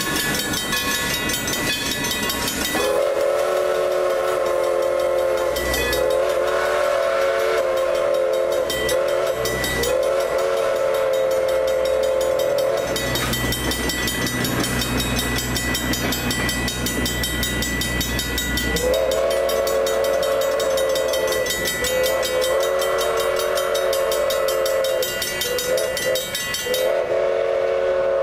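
Steam locomotive chime whistle blowing two groups of blasts: three long ones, then long, long, short, long, the grade-crossing signal. Under the whistle the crossing's warning bell rings steadily and the cars rumble past on the rails. The bell stops just before the end.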